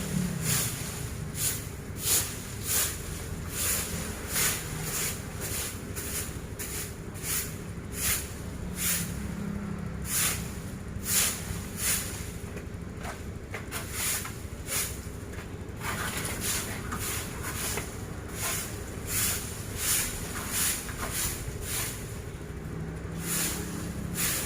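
Broom sweeping fallen leaves and blossoms across a yard: regular scratchy strokes, about one every two-thirds of a second.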